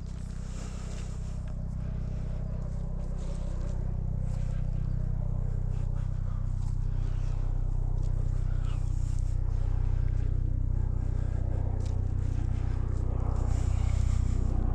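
Low, steady engine hum that grows louder over the first ten seconds or so, with faint rustling of clothing and footsteps on top.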